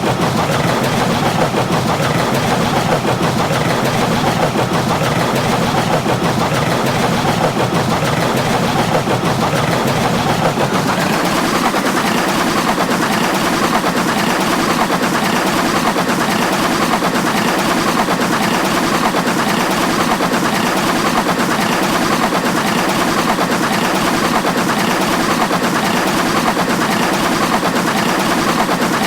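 Roller coaster train clattering along its track in a rapid, continuous rattle, its tone shifting to a thinner, higher clatter about eleven seconds in.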